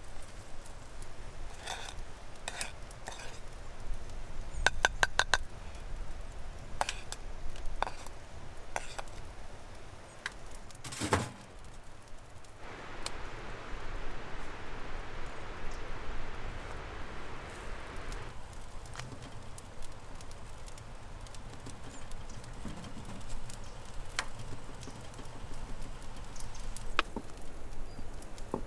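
Food being prepared by hand on wooden bowls and boards: scattered light clicks, taps and knocks of hands and utensils, with a quick run of ticks about five seconds in and one louder knock about eleven seconds in. A steady hiss runs for about five seconds in the middle.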